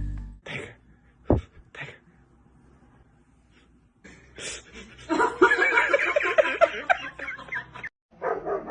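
A person snickering and laughing in quick bursts, starting about five seconds in and picking up again briefly near the end, after a few short isolated sounds at the beginning.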